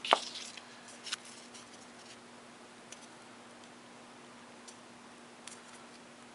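Light handling of a book and cloth tape during a repair: one sharp tap at the start, a softer click about a second in, then a few faint ticks over a steady low hum.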